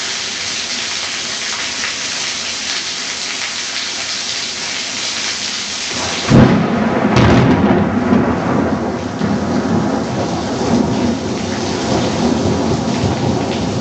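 Heavy downpour hissing steadily, then about six seconds in a sudden loud thunderclap, with a second crack about a second later, breaking into rumbling thunder over the rain.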